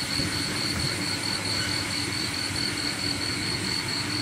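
Steady rain falling, with a night insect chorus trilling in a fast, even, high-pitched pulse over it.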